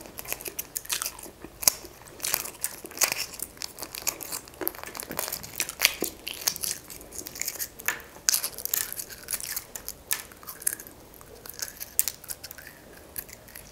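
Hard-boiled egg being peeled by hand at close range: the shell crackles and snaps off in small pieces, an irregular run of sharp clicks and crinkles.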